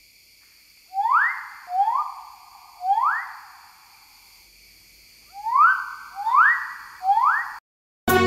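A bird giving six loud, harsh calls in two sets of three. Each call sweeps up in pitch and is then held briefly, and the last one cuts off abruptly.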